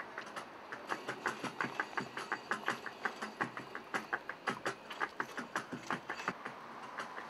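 Dance steps: hard shoe heels clicking on a hard floor, about three sharp clicks a second, unevenly spaced.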